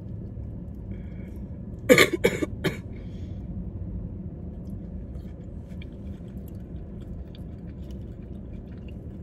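A short fit of coughing: three or four quick coughs close together about two seconds in, over a steady low background hum.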